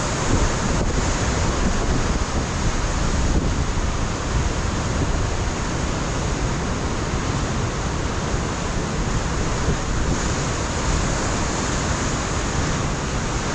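Ocean surf washing against a rocky coastline in a continuous rush, with wind buffeting the microphone and adding a low rumble.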